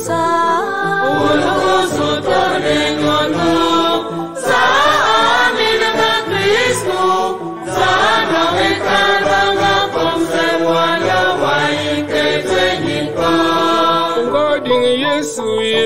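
Church choir singing a hymn, several voices in harmony with gliding melodic lines.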